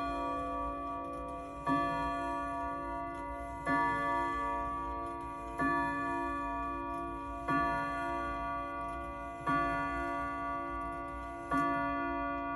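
Vintage Gazo Torrey Pines strike clock striking the hour on its gong: six strikes about two seconds apart, each ringing on until the next.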